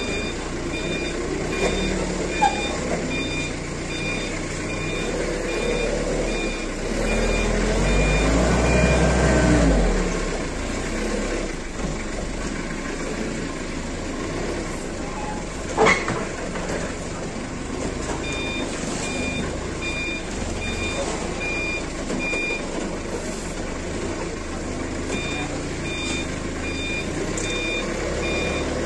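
Forklift running with its reversing alarm beeping at about two beeps a second; the beeping stops for several seconds at a time and starts again. The engine revs up and back down briefly about seven seconds in, and there is a single sharp clack about 16 seconds in.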